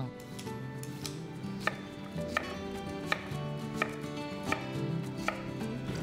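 Kitchen knife chopping a peeled Chinese yam into chunks on a wooden cutting board: a steady series of sharp knocks about every 0.7 s.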